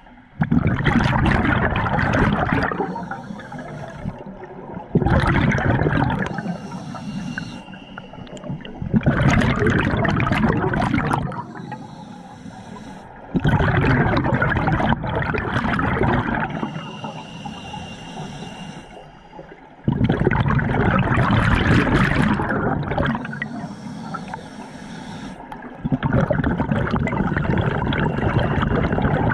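Scuba diver breathing through a regulator underwater: a rush of exhaled bubbles about every four to six seconds, six times, with a quieter hiss from the regulator on each inhale between them.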